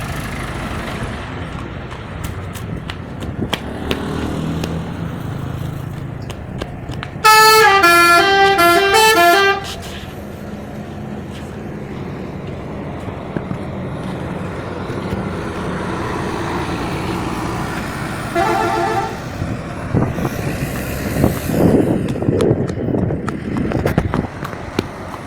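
Bus telolet horn playing a fast multi-note tune for about two and a half seconds, with a second, shorter and fainter burst of the tune later on. Road traffic and engine noise run underneath and swell near the end.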